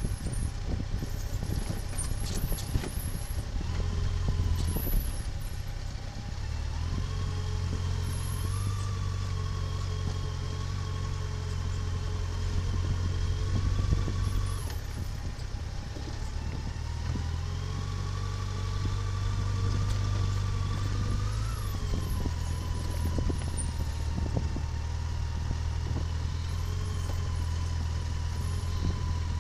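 Motor vehicle engine running while driving, its pitch climbing slowly and then dropping back several times as the revs change.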